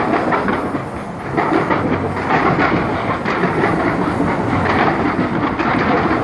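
Skyscraper-mounted fireworks firing in a dense, continuous barrage of rapid bangs and crackles, easing briefly about a second in.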